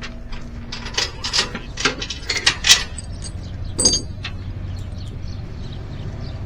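Steel tie-down chain clanking and rattling as it is run through a skid steer's tie-down point and hooked, a quick series of clanks over the first three seconds and one ringing clank a little before four seconds. A low steady hum runs underneath, strongest in the second half.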